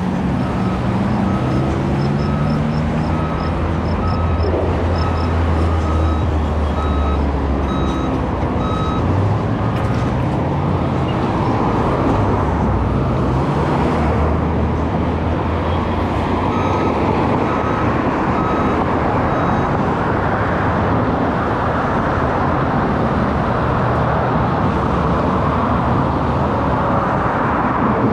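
Steady engine and tyre noise of a vehicle driving on the road. A run of short, evenly spaced beeps, about one a second, sounds through the first several seconds and again briefly later on.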